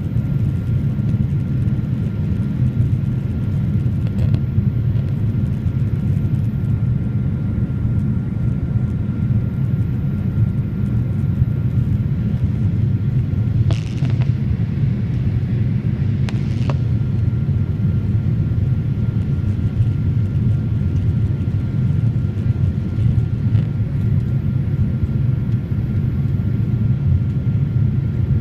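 Steady low rumble inside a Boeing 787 Dreamliner cabin during the climb after takeoff: engine and airflow noise. There are two faint clicks about halfway through.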